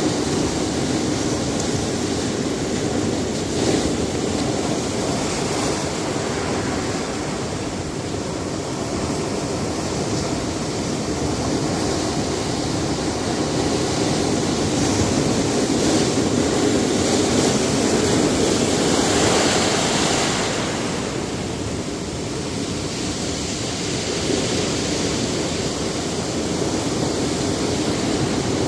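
Sea surf washing against a rocky shore: a continuous rush of breaking waves that swells and eases, with one larger wave building to a peak near two-thirds of the way through.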